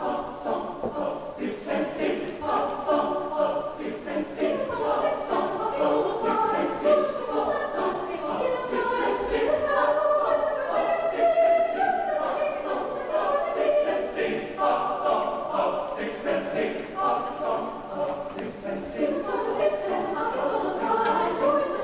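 Mixed-voice high school choir singing together, coming in right at the start.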